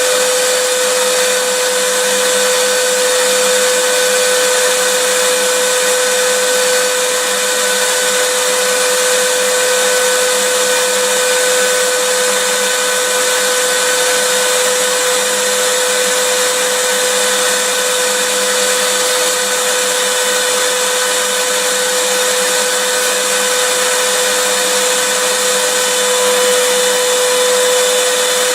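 Vacuum cleaner running steadily: an even rushing hiss of air with a constant motor whine, no change in speed.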